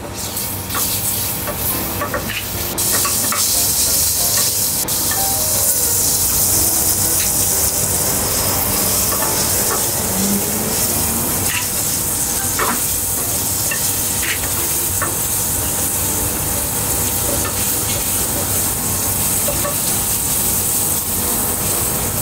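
Minced garlic and dried chili frying slowly in a little oil in a metal pan, a steady sizzle that builds over the first few seconds, with occasional scrapes and taps of a metal spatula against the pan. The garlic is being cooked over low heat to drive off its moisture.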